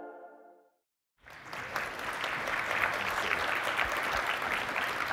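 Audience applauding, starting abruptly just over a second in after the last of the intro music fades out.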